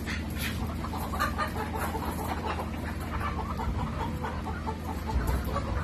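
A crowd of Dekalb Brown laying hens packed in wire crates, clucking over one another in many short, overlapping calls.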